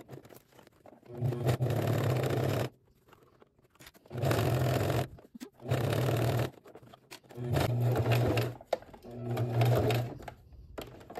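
Home sewing machine stitching through a thick seam of four layers of leather, run in five short bursts with pauses between them. The stop-start running reflects a seam that a home machine may or may not get through.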